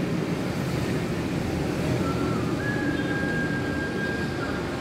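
Steady low mechanical rumble, with a thin high whistle-like tone held for about two seconds past the middle.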